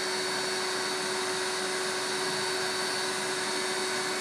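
Small vacuum cleaner running steadily, a rush of air with a constant low hum and high whine, its nozzle held at a painting's surface to suck up the dust brushed off it during surface cleaning.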